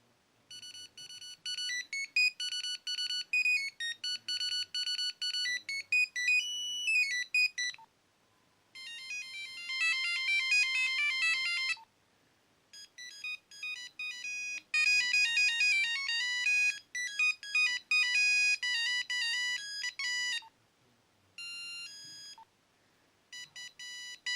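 Nokia 3110 (NHE-8) mobile phone playing its built-in monophonic ringtones one after another: quick melodies of single beeping notes, about four different tunes separated by short pauses.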